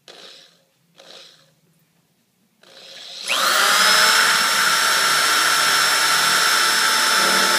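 Hand-held electric drill boring a small first hole through the sheet-metal trunk lid of a 1971 Mustang. Two brief bursts come first, then a few seconds in the drill spins up with a quickly rising whine and runs at a steady high pitch.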